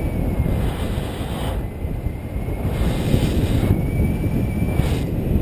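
Steady low rumble of airflow buffeting the microphone of a paraglider in flight. A faint thin high tone comes and goes.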